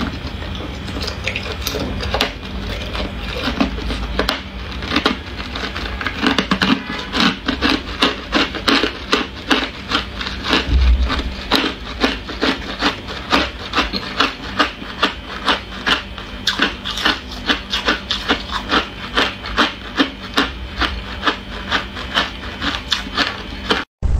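Ice being chewed in the mouth, a steady run of gritty crunches at about two a second.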